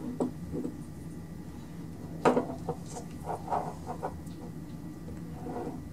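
Light clicks and knocks of a lawn mower magneto coil and multimeter probes being handled on a workbench, a small cluster about two seconds in and a few more after, over a low steady hum.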